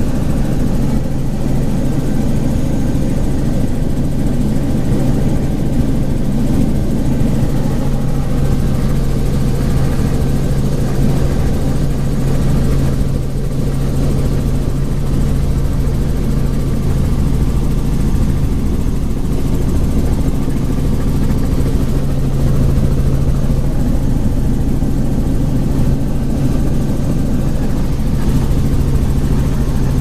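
Helicopter in flight, its engine and rotor making a loud, steady drone with a strong low hum.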